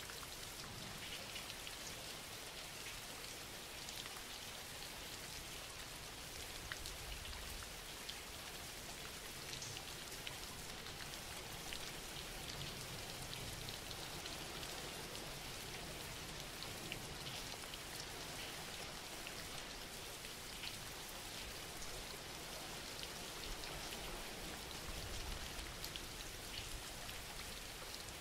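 Quiet, steady rainfall: an even hiss dotted with many faint ticks of single drops.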